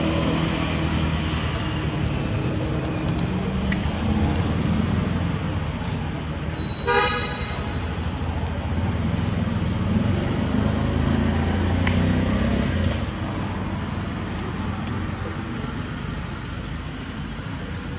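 Steady low outdoor rumble of traffic, with one short horn toot about seven seconds in.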